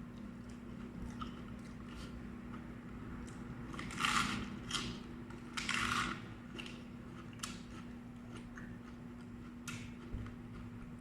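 Close-miked chewing of crunchy raw vegetables: small wet mouth clicks, with two louder crunching bites about four and six seconds in.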